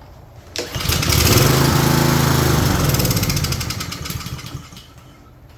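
Honda small engine on a Craftsman self-propelled lawn mower pull-started: it catches about half a second in and runs steadily for a couple of seconds, then slows and dies by about five seconds in. It is running on the fuel left in the carburetor, because the fuel valve is shut off.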